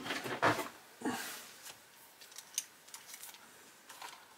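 Light clicks and a short rustle from a diecast model car and a screwdriver being handled on a work mat, with a few sparse, faint ticks after the first second.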